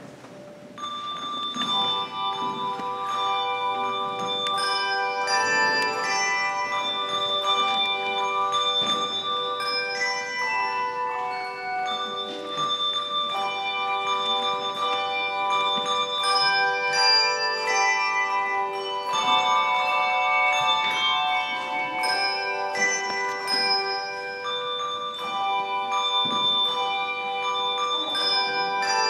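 Youth handbell choir playing a piece: several bells struck together in chords, each note ringing on and overlapping the next, starting about a second in.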